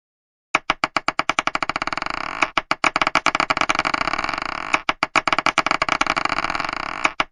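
Marbles clattering: quick clicks that come faster and faster until they run together into a continuous rolling rattle. This happens about four times, each run starting again with a sharp click, after a brief silence at the start.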